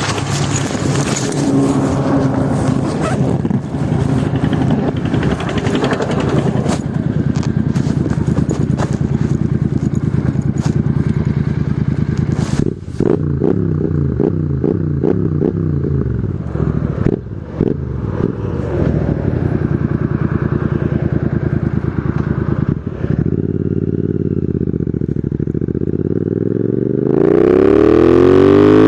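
Royal Enfield Continental GT 650's parallel-twin engine running through loud Red Rooster aftermarket exhausts, its revs swinging up and down with a string of sharp pops and crackles on the overrun. Near the end it pulls up steadily in pitch as it accelerates.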